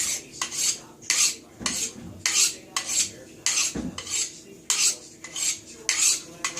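A kitchen knife blade drawn along a honing steel in quick, even, alternating strokes, about two to three a metallic swish each second, to true the freshly stone-sharpened edge.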